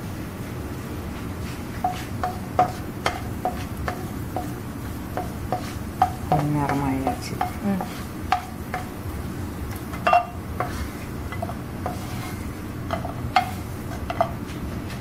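A wooden spatula stirring cashews in a ceramic-coated wok and scooping them out, making a string of light irregular taps and scrapes against the pan.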